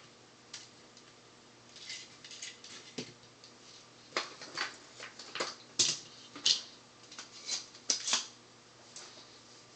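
Handling noise on a workbench: an irregular run of light clicks, taps and short scrapes as soldering tools are moved, put down and picked up, busiest and loudest in the second half.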